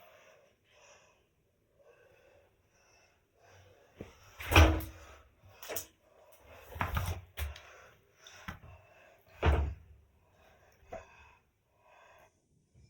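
Sneezing: loud sudden bursts about four and a half, seven and nine and a half seconds in, with smaller ones between and faint breathy sounds.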